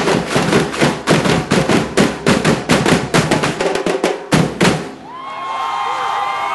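Samba drum section playing a fast beat, with large bass drums struck with mallets among the other drums; the drumming cuts off suddenly about five seconds in, and voices then shout and cheer.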